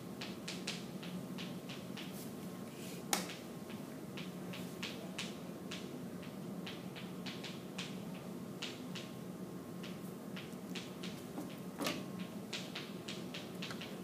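Chalk tapping and scratching on a chalkboard as a chemical structure is drawn: quick irregular ticks and short strokes, with two sharper knocks of the chalk about 3 seconds and 12 seconds in, over a steady low hum.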